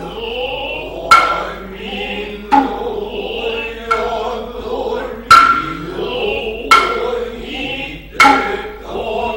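Noh hayashi music: sharp hand-drum strikes about every second and a half, with drawn-out chanting voices and a high flute line between them.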